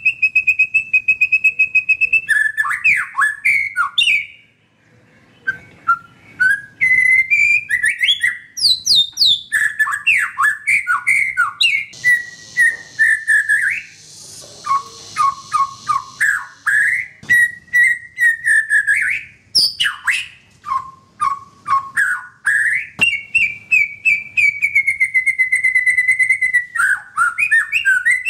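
White-rumped shama singing a long, varied song: a steady trilled whistle, then fast phrases that jump up and down in pitch, with a short pause about four seconds in, a harsh rasping passage around the middle, and a long slowly falling whistle near the end.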